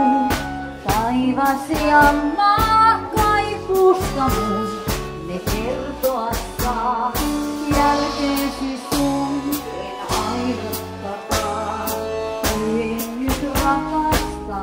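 Live band playing a tango: a woman sings into a microphone over keyboard, electric guitar and drum kit, with a steady beat.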